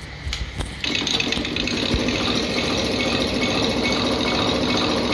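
Diesel fuel injection pump test bench starting up about a second in, then running steadily as it drives a truck's injection pump through its coupling, with a mechanical rattle; a few short knocks come just before it starts.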